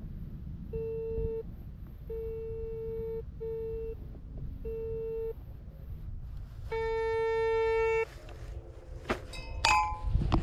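Metal detector sounding a low buzzy tone in four short beeps as its coil sweeps over grass, then one longer, louder tone about seven seconds in, marking a target under the coil. A few sharp clicks and knocks follow near the end.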